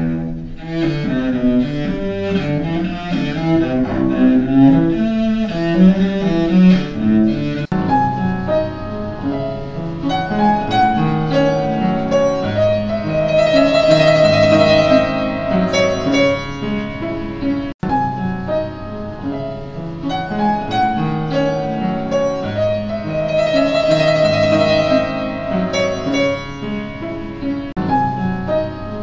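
A solo cello playing bowed notes for roughly the first eight seconds, then cutting to an upright piano playing a passage. The piano passage stops abruptly a little past halfway and starts again from the same point.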